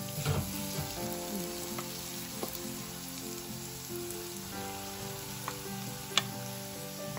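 Green chilli paste and soaked fenugreek seeds frying in hot mustard oil in a metal kadhai, a steady sizzle. A wooden spatula scrapes the pan near the start, and there is a single sharp tap about six seconds in.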